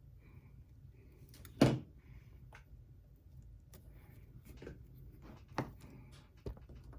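Knocks and clicks of tools and parts being handled on a workbench: one sharp knock about one and a half seconds in, then a few lighter clicks.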